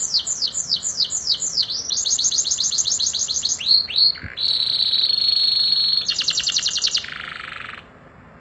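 Domestic canary singing: a run of rapid down-slurred notes, then a faster trill, two swooping notes, a long steady high note, and another fast trill that fades near the end.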